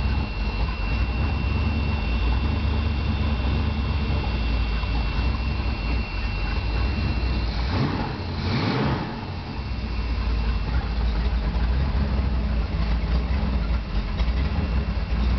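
Carburetted V8 engine running at a steady idle on an engine test stand. The low rumble dips briefly about eight seconds in.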